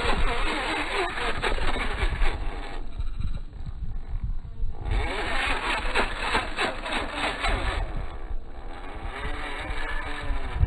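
Electric motor and geared drivetrain of an RC rock crawler whirring as it climbs over rock, the pitch rising and falling with the throttle, heard slowed down. There is a sharp knock at the very start, and the motor eases off for a couple of seconds partway through.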